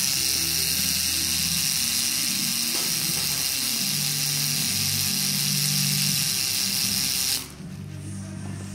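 Coil tattoo machine buzzing steadily as it needles ink into skin, stopping abruptly about seven seconds in. Background music plays underneath.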